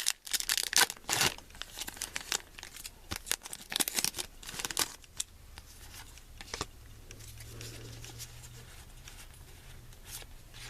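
Foil wrapper of a Pokémon trading card booster pack being torn open and crinkled, a dense run of crackling rustles that thins out over the second half as the pack is emptied.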